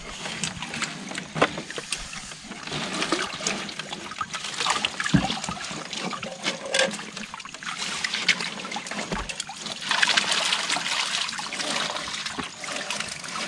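Water trickling and splashing as a mesh net is handled and lifted in shallow water, with scattered light knocks and rustles. The water noise grows louder about ten seconds in.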